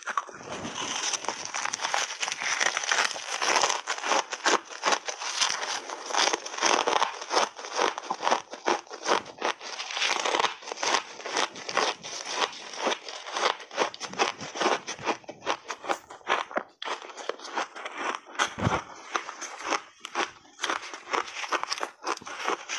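Close-miked crunching and chewing of refrozen shaved ice: a dense, unbroken run of crisp crackles as the frozen chunks are bitten and ground between the teeth.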